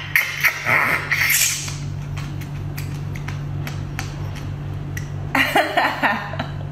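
Wet slurping as roe is sucked out of an opened sea urchin shell in the first second and a half, followed by scattered light clicks of handling the spiny shell. A short vocal exclamation comes near the end.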